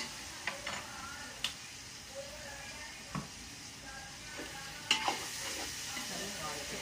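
A long metal spoon stirring vegetable rice in a large metal pot, knocking and scraping against the pot several times, over a steady sizzle of the rice frying.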